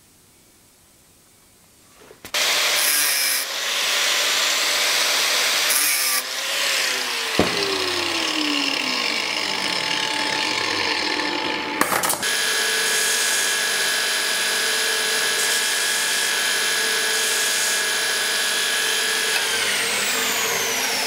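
After a quiet start, loud metal-cutting and grinding on a steel sword-guard plate begins about two seconds in, with a tool motor winding down in pitch a few seconds later. About halfway through, after a click, a belt grinder runs steadily with a constant whine until the sound cuts off abruptly at the end.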